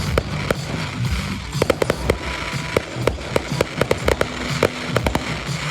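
Fireworks going off in quick succession: many sharp bangs and crackles, packed most densely about a second and a half to two seconds in.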